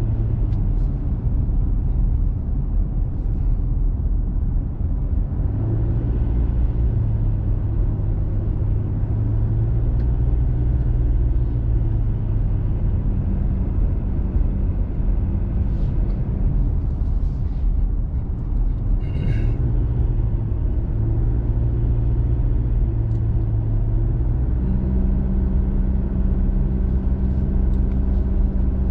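Diesel pickup truck driving, heard from inside the cab: a steady low drone of engine and tyres whose engine note shifts up and down a little. A brief high chirping sound comes about two-thirds of the way through.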